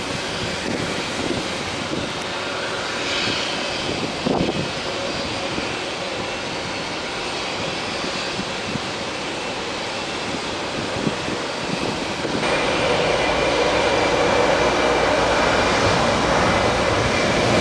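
Boeing 737 jet engines running at taxi power: a steady rush with a faint whine, stepping up louder about twelve seconds in.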